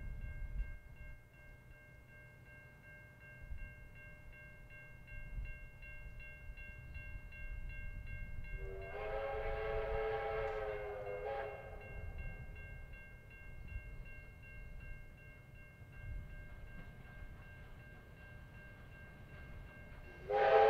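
An approaching train's locomotive sounds a warning blast lasting about three seconds, a little under halfway through, and starts a second, louder blast right at the end, over a faint low rumble from the train.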